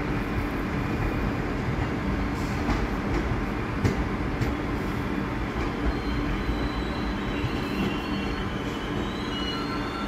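R62A subway train approaching on open tracks: a steady rumble of wheels on rail with scattered sharp clicks. From about halfway in, a thin high wheel squeal sets in and grows stronger near the end.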